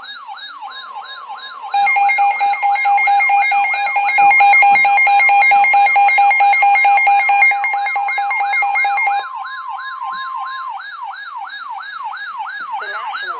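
Two weather alert radios sounding an alert together. A siren-like tone sweeps up and down about two and a half times a second throughout, over a steady warning tone of about 1 kHz, the NOAA Weather Radio 1050 Hz alarm. A louder, rapidly pulsing alarm tone joins about two seconds in and stops about nine seconds in.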